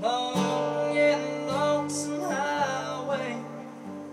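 Acoustic guitar being played, with a man singing over it.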